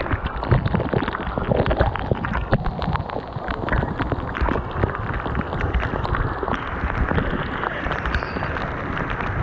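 A waterfall's falling water rushing and splashing close by: a dense, uneven noise with a heavy low rumble.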